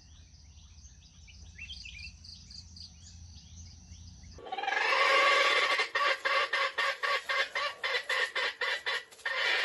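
Faint chirping calls from chickens over a steady high insect-like drone. About four seconds in, the audio switches abruptly to a much louder pitched sound that pulses about four or five times a second.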